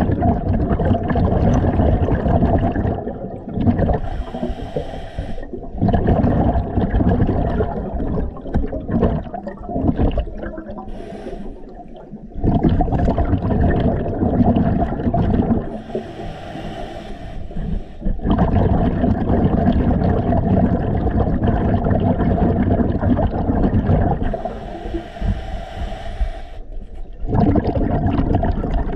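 A scuba diver breathing underwater through a regulator: a low bubbling, gurgling rumble of exhaled bubbles, broken three times by a hissing stretch of about two seconds as air is drawn through the regulator.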